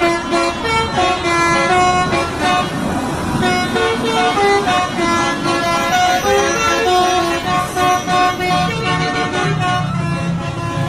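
A truck's telolet horn, a set of musical air horns, playing a quick tune of short notes that step up and down in pitch over and over.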